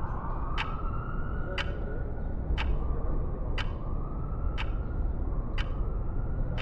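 Tense film sound design: a sharp tick about once a second, like a clock, over a low rumble, with a tone that glides upward again and again every couple of seconds, like a slow siren.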